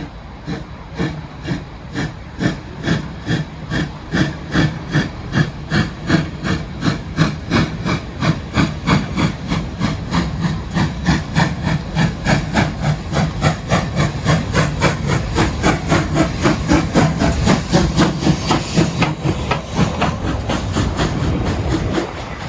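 Steam locomotive approaching, its exhaust chuffing in an even rhythm that gets louder and quicker as it nears. Near the end the chuffing gives way to a steadier, slightly quieter rumble.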